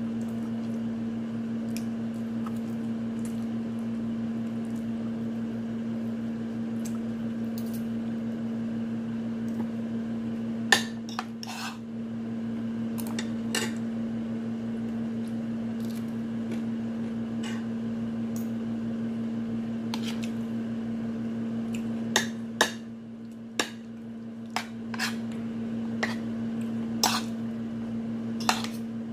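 Metal fork clinking and scraping against a plate as food is scooped up, in scattered sharp clicks with a quick run of them near the end. A steady low hum runs underneath.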